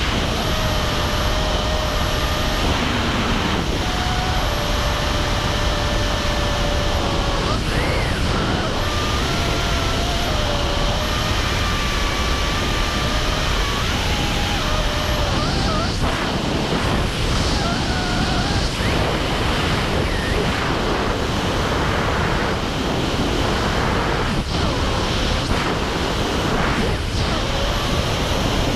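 Steady rush of wind over a helmet-mounted action camera in wingsuit freefall, with faint whistling tones that waver in pitch.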